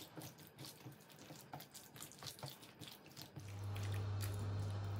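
Faint wet squelching and small clicks of a hand working raw chicken pieces through a thick yogurt-and-spice marinade in a stainless steel bowl. About three and a half seconds in, a steady low hum sets in and carries on.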